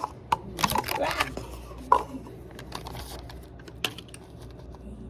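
Typing on a computer keyboard: keys clicking in irregular bursts, with a dense run early and a few single louder keystrokes after.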